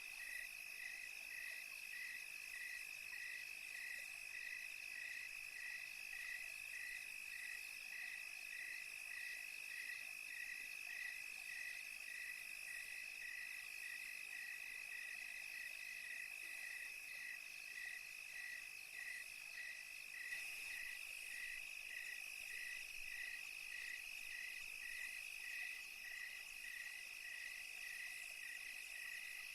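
Night chorus of crickets: a steady high trill, with a second call chirping evenly about one and a half times a second.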